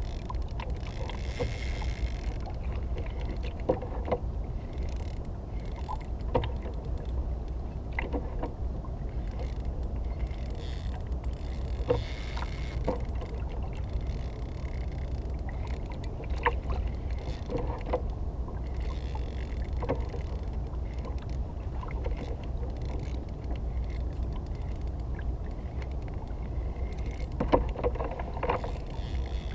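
A kayak on open water: a steady low rumble of water and air around the hull, with scattered light knocks and taps every couple of seconds and a few together near the end.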